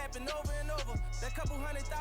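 Hip hop background music: a rapped vocal over a steady bass line, with a deep kick drum about twice a second.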